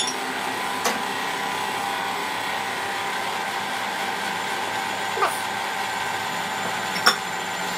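Induction cooktop running at high power, its cooling fan giving a steady whirring hum. A few light clicks and taps break it, the sound of ghee being spooned into the empty non-stick pan.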